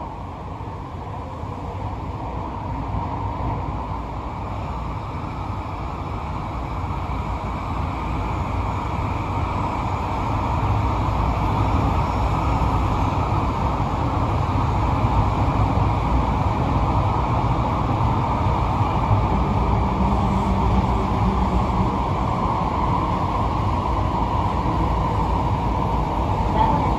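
Running noise of a Green Line 10000-series linear-motor subway train in a tunnel, heard inside its rear cab: a steady rumble of wheels on rail, growing louder over the first ten seconds or so, then steady.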